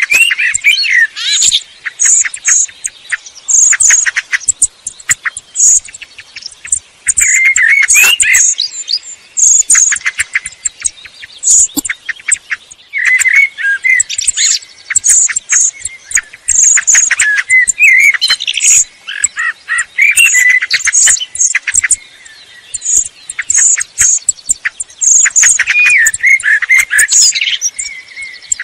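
Eurasian blackbird and song thrush singing: short phrases of warbled, gliding whistles mixed with high, thin, rapidly repeated notes, one phrase after another with brief pauses between.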